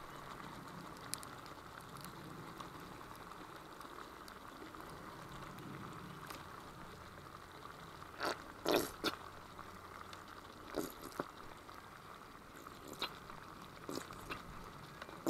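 Faint steady sizzle of a pork roast cooking in a hot cast iron pan. From about eight seconds in come a handful of short, sharp splats and pops as barbecue sauce is squeezed from a bottle over the meat.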